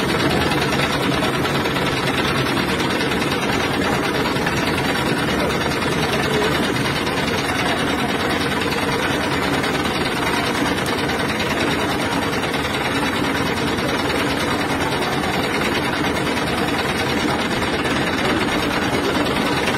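Heavy vehicle engine running steadily at close range.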